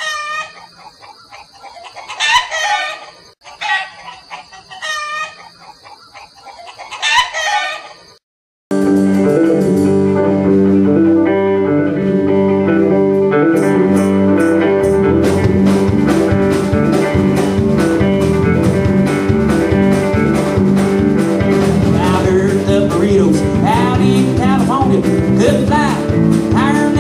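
Chickens crowing and clucking in several separate calls for about eight seconds, then a sudden cut to a country band playing live: electric guitar and bass first, with drums coming in about five seconds later.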